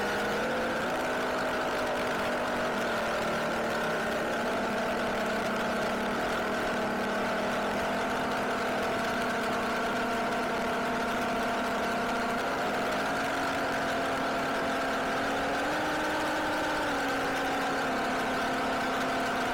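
Car engine running steadily at low revs. Its hum shifts slightly in pitch a few times as the speed changes, rising a little in the second half.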